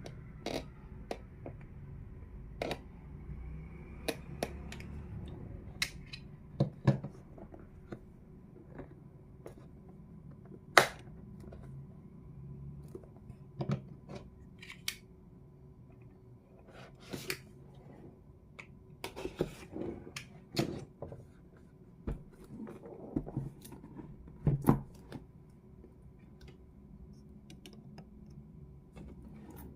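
Unboxing handling noise: packaging being opened and handled, with irregular sharp clicks and taps and a few short rustles.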